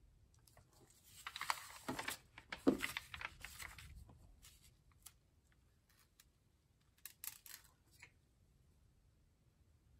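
Sheets of paper and a comic book being handled: a run of sliding and rustling from about one to four seconds in, then a brief second rustle near eight seconds as the comic's cover is folded back.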